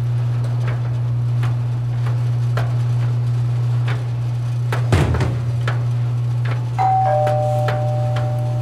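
Two-note doorbell chime (ding-dong) about seven seconds in, a higher note then a lower one, both ringing on. Under it, a washing machine runs with a steady low hum and light clicking, with one thump about five seconds in.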